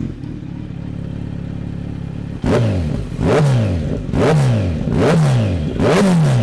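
Kawasaki Z900's inline four-cylinder engine breathing through a Yoshimura slip-on exhaust with the dB killer removed. It idles, then about two and a half seconds in is revved sharply about five times in quick succession, the pitch falling back after each blip.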